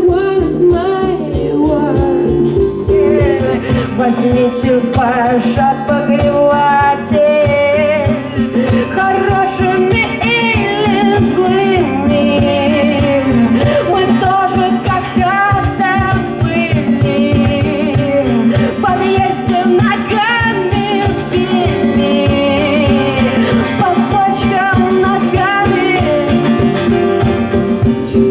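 Live band song: a voice singing over guitar, with a steady beat.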